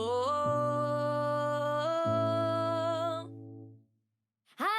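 Background pop song: a singer holds a long wavering note over steady accompaniment. The music fades out about three and a half seconds in, and after a brief silence the singing comes back just before the end.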